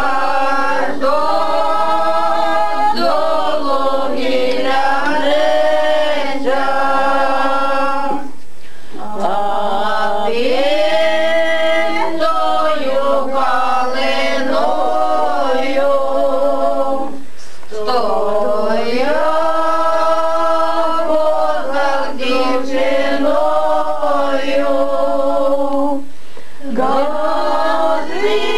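Several voices singing a song together in long drawn-out phrases, with a short break for breath about every nine seconds.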